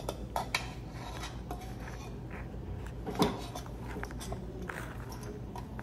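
Metal measuring spoon scooping and leveling baking powder in a canister: scattered light clicks and scrapes, the sharpest a little after three seconds in, over a low steady hum.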